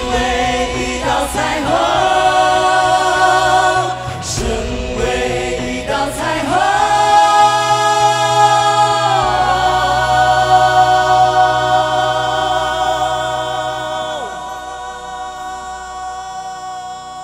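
A singer holds the long closing notes of a pop ballad with vibrato over backing music. The last note is held for several seconds and fades away near the end.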